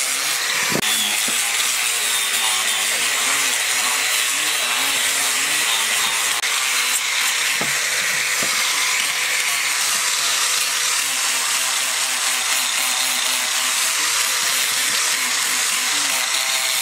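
Angle grinder with a sanding pad running steadily against carved wood: a constant motor whine under the hiss of the abrasive, with a few brief knocks.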